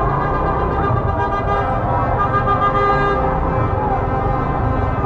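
Many car horns honking at once in a street celebration, long overlapping blasts over a dense din of traffic and crowd.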